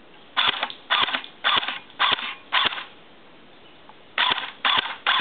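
CYMA airsoft M14 electric gun (AEG), fitted with a PDI 140% spring, metal bushings and a shimmed gearbox, firing single shots, each a short mechanical clack-and-whir of the gearbox cycling. Five shots about two a second, a pause of about a second and a half, then three more.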